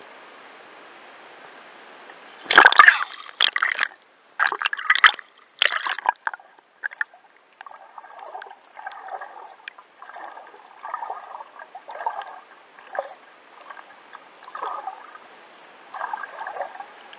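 Water gurgling and sloshing, picked up by an underwater camera, over a faint steady hiss. A cluster of loud splashy bursts comes a few seconds in, followed by softer gurgles about once a second.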